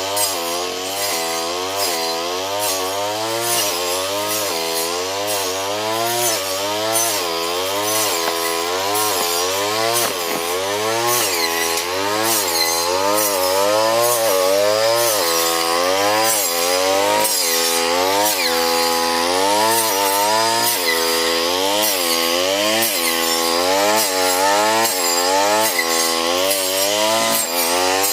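Petrol brush cutter running and cutting patchouli stalks, its engine speed rising and falling about once a second as the blade bites into the stems and frees again.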